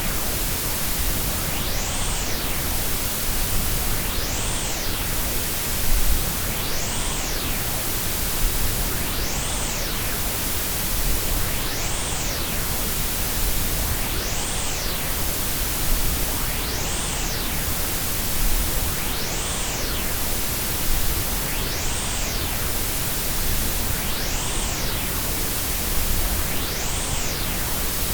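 Combined white, pink and Brownian noise: a steady, full-range hiss. A whooshing sweep in the high end rises and falls about every two and a half seconds.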